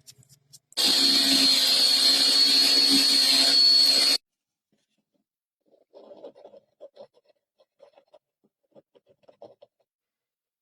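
Electric drill running steadily at one pitch for about three seconds, then stopping abruptly. Faint light knocks and rubbing follow.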